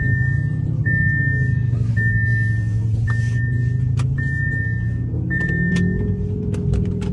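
Lamborghini's seat-belt warning chime sounding about once a second, a steady tone repeated six times over the low running of the engine in the cabin, sounding because the driver's seat belt is unfastened. The chime stops about six seconds in as the engine's pitch starts to rise.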